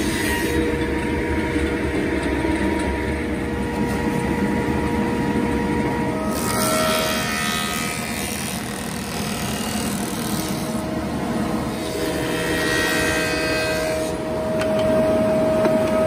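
Small table saw running steadily, a motor-and-blade whine over noise, with the whine shifting a few times as thin wooden boards are worked at the blade.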